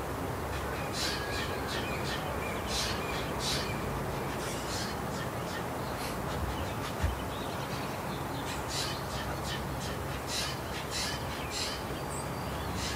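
Jays calling: many short calls repeated in quick runs, over a steady background rush, with one low thump about seven seconds in.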